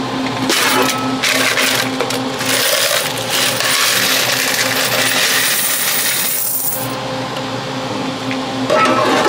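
A load of coins pouring and jingling out of a vending machine's plastic coin box into a fabric bag, a continuous rush of clinking for several seconds that thins out about two-thirds of the way in.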